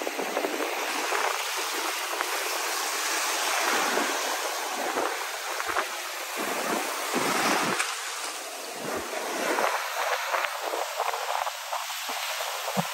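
Ocean surf washing onto the beach, swelling and easing every few seconds, with wind gusting on the microphone.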